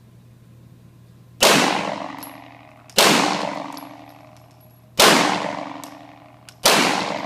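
Four gunshots in an indoor shooting range, about one and a half to two seconds apart, each with a long echoing decay.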